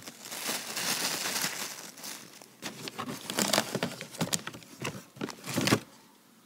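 Crinkling and rustling from handling, then a few scattered knocks and thumps; the sound dies away shortly before the end.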